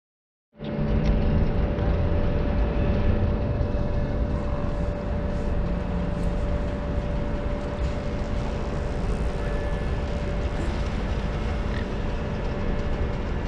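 Steady mechanical drone with a constant hum, starting suddenly about half a second in.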